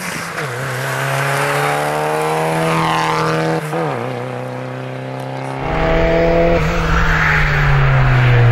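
Rally car engines revving hard as the cars pass one after another. The pitch climbs and drops sharply twice, about half a second in and again near four seconds. From about halfway it gets louder, with a deep rumble underneath.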